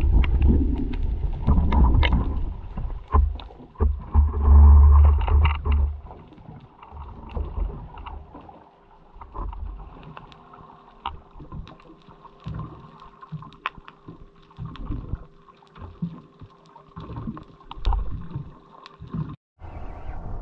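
Underwater audio from an action camera in its waterproof housing: a heavy, muffled water rumble for the first few seconds, then quieter with many scattered sharp clicks and a faint steady hum. The sound cuts out briefly about a second before the end.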